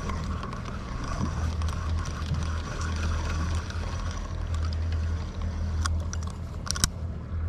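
Twin Mercury Verado V8 outboards idling, a steady low hum, with a few sharp clicks about six seconds in.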